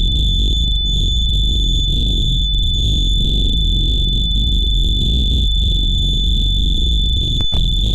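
Harsh noise wall: a loud, unchanging wall of distorted noise heavy in the low end, with a steady high-pitched whine running through it. It cuts out for an instant about seven and a half seconds in.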